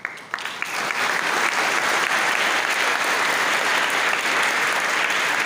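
A hall full of cadets applauding: a few scattered claps, then a steady, dense round of applause within about a second.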